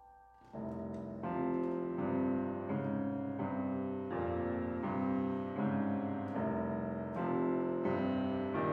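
Grand piano playing an instrumental interlude in an aria accompaniment. It enters about half a second in with chords struck in an even rhythm.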